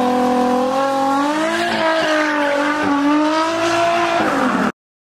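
Drift car's engine revving high and held there during a stationary burnout, with the tyres spinning. The pitch holds steady, then wavers slightly as the throttle is worked, and the sound cuts off suddenly near the end.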